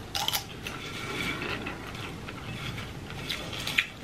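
A person chewing a mouthful of microwave popcorn: irregular soft crunching and mouth clicks, with a few sharper clicks near the end.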